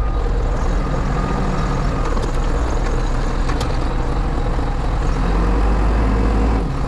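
New Holland backhoe loader's diesel engine running steadily at working speed, deep and loud. It grows a little louder about five seconds in and eases off just before the end.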